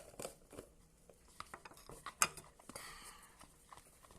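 A utensil scraping and clinking against a bowl in scattered, irregular taps while stirring a glue-and-cornstarch slime mixture that is starting to firm up.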